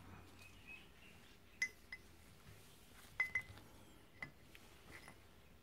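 Faint light metallic clinks, about six spread out with a brief ring to each, as an aluminium two-stroke cylinder barrel with steel studs and the tools around it are handled on a workbench.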